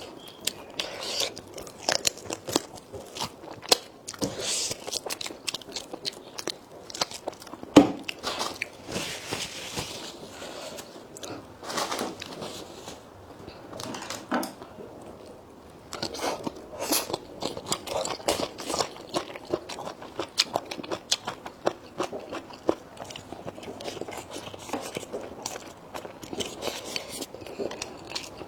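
A person chewing and biting food close to the microphone, with frequent irregular crunches and clicks.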